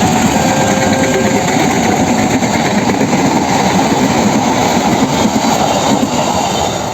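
Train passing close by: a loud, steady rumble of wheels on the rails, easing off a little near the end.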